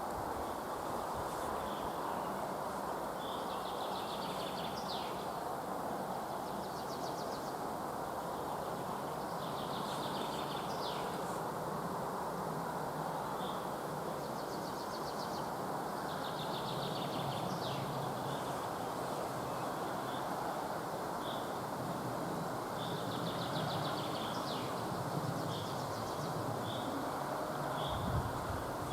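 A songbird singing a short trilled phrase that ends in a quick downward flourish, four times, about every six to seven seconds. Short single call notes repeat more often in the second half. A steady low rushing noise runs underneath.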